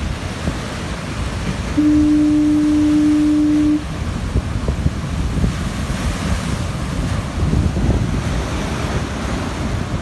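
A foghorn sounds one steady blast of about two seconds, starting about two seconds in. Heavy surf crashes on the rocks throughout, with wind on the microphone, and a wave breaks loudly near the end.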